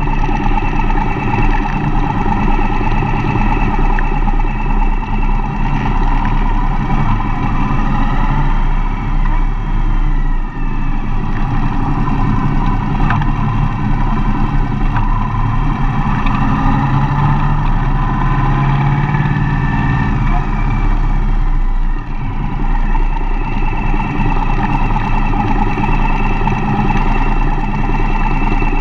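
Mercedes-Benz Vito van being driven: a steady run of engine and road noise, with the engine pitch gliding up and down a few times.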